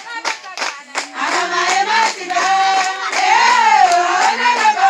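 A group of voices singing together to rhythmic hand clapping, several claps a second. The singing swells louder in the second half.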